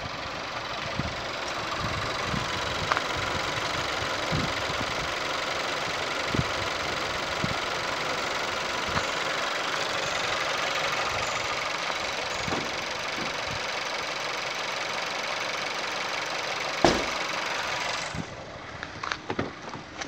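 2015 Audi A3's 1.4-litre turbocharged TFSI four-cylinder petrol engine idling steadily with the bonnet open. There is a single sharp knock near the end, and the engine sound drops away sharply just before the end.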